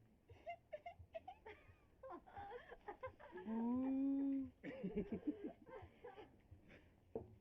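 A person's voice making silly noises: short squeaky calls, then one long held note about three and a half seconds in, followed by choppy, giggling laughter.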